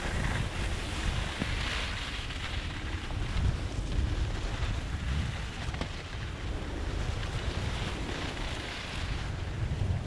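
Wind buffeting the microphone of a camera on a skier moving at about 20 mph, with the hiss of skis sliding over packed snow.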